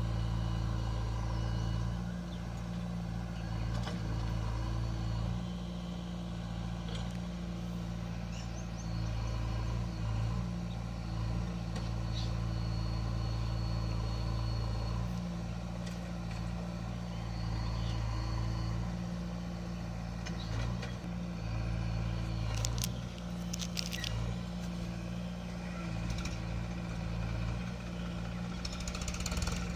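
Heavy diesel machinery running steadily, the engine note swelling and easing a little as it works. There are a few sharp metallic clanks about two-thirds of the way in and again near the end.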